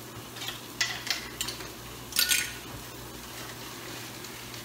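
Kitchen utensils and a container being handled on a counter while cornstarch is measured: a few short clinks and rustles, the loudest about two seconds in, over a low steady hum.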